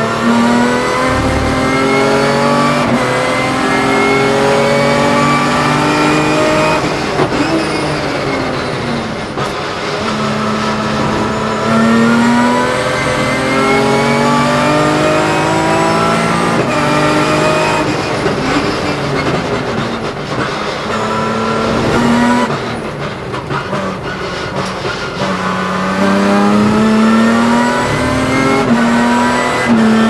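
BMW S50B32 3.2-litre straight-six of a 1996 M3 E36 race car, heard from the cockpit under hard acceleration. The revs climb in long pulls, each cut off by a quick drop at a gear change. About three-quarters of the way through it briefly eases off and gets quieter, then pulls hard again.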